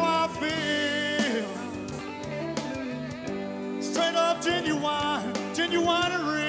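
Country song: a man singing into a microphone over guitar accompaniment. He sings two long, wavering held phrases, one just after the start and one from about four seconds in.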